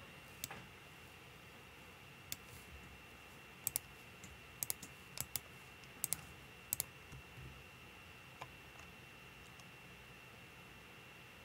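Computer mouse buttons and keyboard keys clicking now and then, many of the clicks coming in quick pairs, over a faint steady high-pitched whine.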